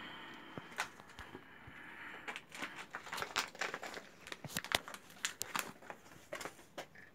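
Irregular rustling and crackling with short sharp clicks, several a second, getting busier about two seconds in.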